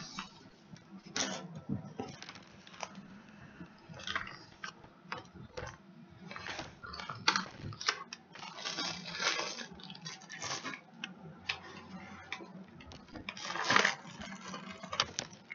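Kitchen clatter: irregular knocks and clinks of pans and utensils being handled, loudest about seven seconds in and near the end, over the steady hum of a running air fryer.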